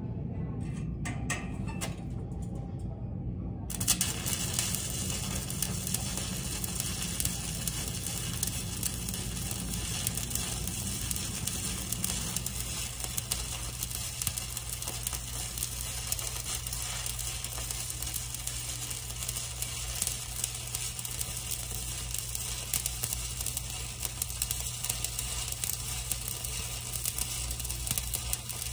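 Stick-welding arc burning on a 7018 electrode: a steady crackling sizzle that starts about four seconds in as the arc is struck to tie back into a stopped bead, then runs on. A low steady hum lies underneath.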